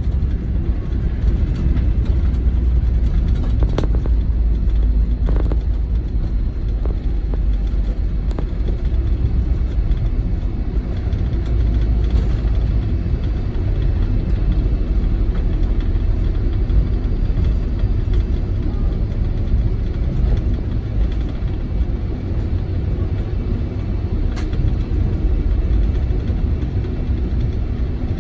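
Cabin noise of a Boeing 747-400 rolling out after landing: a steady low rumble from the engines and the wheels on the runway, heard from inside the cabin. A few short knocks or rattles come through, around four, five, eight and twenty-four seconds in.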